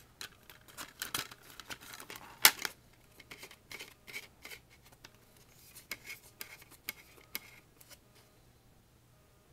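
Plastic DVD cases and discs being handled: a string of small clicks and light rattles, with one sharper click about two and a half seconds in. The handling stops about a second before the end.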